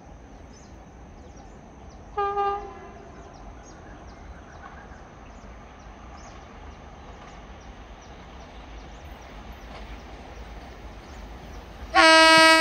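Horn of an Indian Railways WAP-7 electric locomotive hauling an express train: one short blast about two seconds in, then a much louder, longer blast near the end.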